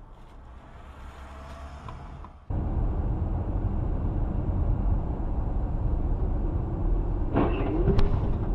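Steady low rumble of a moving car's engine and tyres heard from inside the cabin. It starts abruptly about two and a half seconds in, after a quieter stretch, and a brief wavering pitched sound and a click come near the end.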